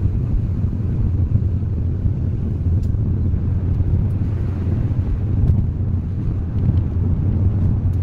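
Cabin noise of a small light car driving slowly on a mountain road: a steady low engine and road rumble, with a few faint clicks.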